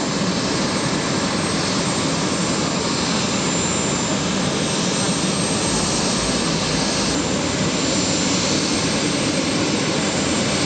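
Aircraft turbine engines running steadily: a constant high whine over an even rush of noise.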